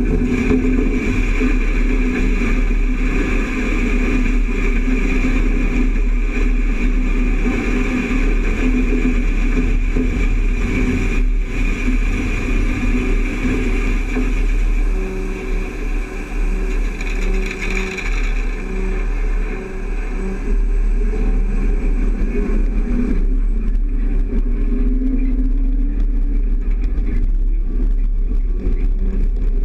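Steady running of farm machinery, a John Deere combine unloading grain into a moving grain cart alongside it: engine drone and low rumble, with the hiss of grain pouring from the unloading auger. The grain hiss dies away about two-thirds of the way through as the unloading ends, leaving the engines running.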